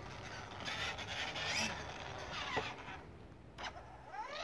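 Electric ride-on toy motorbike's motor whirring in short spurts, its pitch rising and falling as the throttle is pressed and let go. The motor sounds weak, in keeping with a battery running low.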